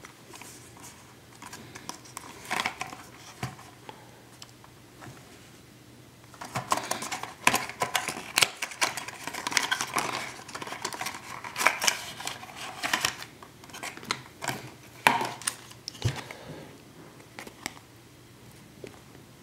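A cardboard and plastic retail box being opened and its contents handled: irregular clicks, crinkles and rustles, sparse at first, busiest from about six seconds in, and dying down a few seconds before the end.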